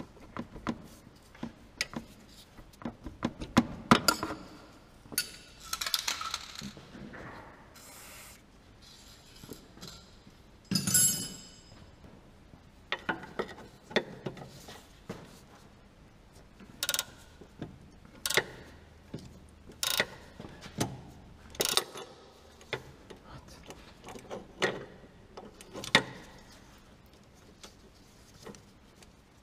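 Spanner working the rusted nut of a car's suspension drop link: irregular metallic clicks and short scrapes of steel tool on nut, the loudest about four and eleven seconds in. In the second half, single sharp clicks about every second or two as the spanner is swung.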